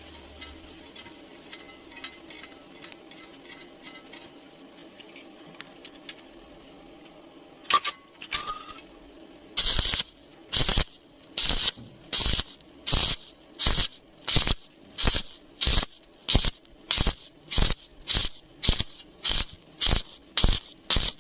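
Welding arc crackling in short, evenly spaced bursts, about one and a half a second: the arc is struck and broken again and again, the stitch technique used to weld thin metal without burning through. It starts about eight seconds in with two brief bursts, after a low steady hum.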